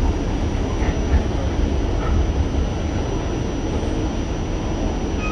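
New York City subway car running along the track, a steady rumble heard from inside the car.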